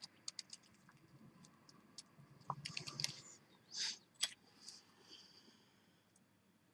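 Faint, scattered light clicks and taps of small silver jewellery pieces and tools being handled on the work surface, with a few sharper ticks around the middle.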